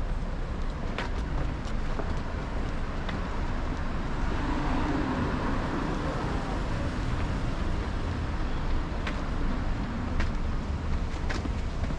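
Street traffic beside a road: a steady noise of cars, with one vehicle passing louder about halfway through, and a few light clicks.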